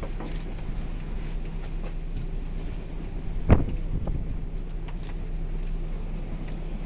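Steady low drone of a fishing boat's engine and deck machinery at sea, with one sharp knock on deck about three and a half seconds in.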